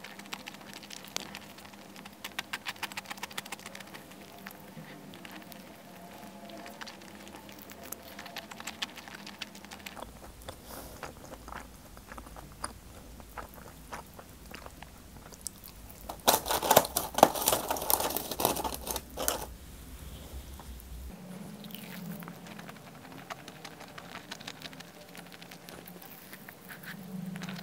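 Close-up chewing and crunching of pizza and fried chicken, with a louder, denser run of crunches a little past halfway through.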